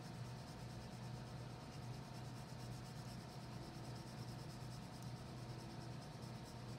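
Wax crayon rubbing on paper in quick back-and-forth shading strokes, a faint rhythmic scratching, over a steady low hum and hiss.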